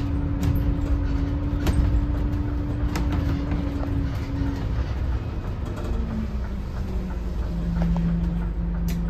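Scania K280CB bus with a Scania DC09 five-cylinder diesel, heard from on board while driving: steady engine and road noise with a whine that drops in pitch about halfway through and again near the end, and a few sharp rattles in the first seconds.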